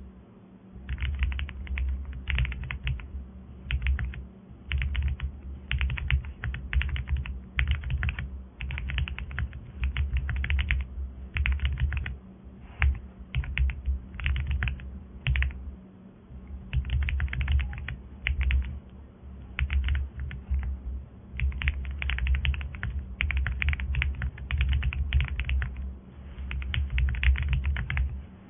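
Typing on a mechanical keyboard with PBT Cherry-profile keycaps: quick runs of key clicks and clacks in bursts, broken by short pauses, over a faint steady low hum.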